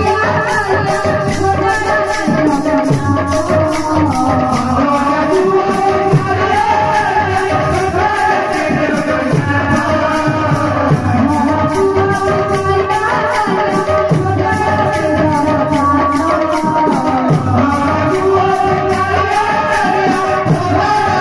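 Live kirtan devotional music: a woman's singing, with melodic accompaniment, over a steady, fast percussion beat with a shaken, rattling sound.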